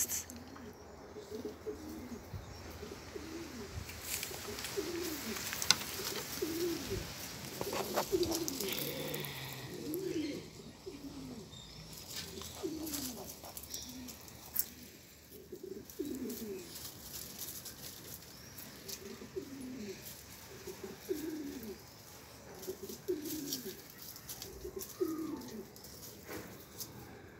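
Pigeon cooing over and over, a low coo repeated about once a second with a few short pauses. Light crackling and rustling of dry debris between about 4 and 10 seconds in.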